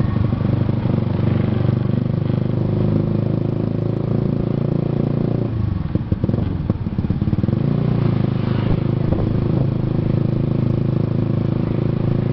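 Motorcycle engine running steadily while being ridden. The engine note drops away around five to six seconds in and comes back up about two seconds later, as the throttle is eased and reopened.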